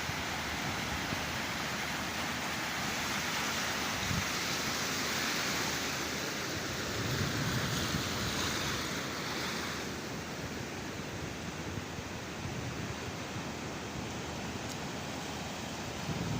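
Sea surf breaking and washing on the shore, a steady rushing wash that swells a little in the middle and eases after about ten seconds.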